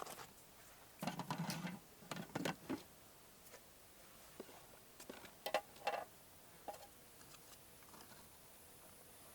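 Scattered light knocks, clicks and rustling, densest in the first three seconds and then sparse.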